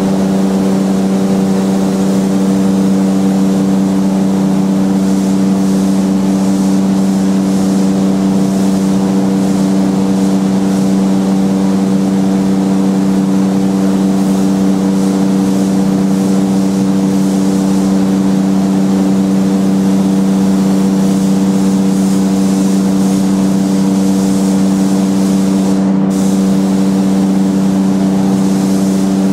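A motor or engine running at a constant speed: a loud, steady hum that does not change pitch.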